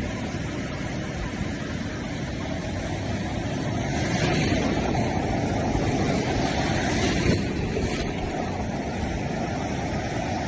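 Steady rushing noise of breaking surf and wind on the microphone, swelling a little about four seconds in and easing after about eight.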